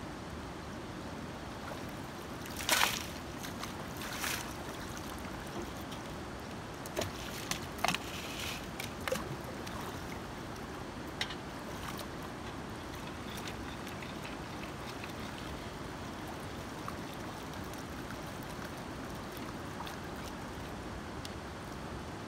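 Shallow river water running steadily around a wader. In the first half come a couple of splashes and several sharp knocks of stones, as a long wooden-handled tool digs into the gravel riverbed.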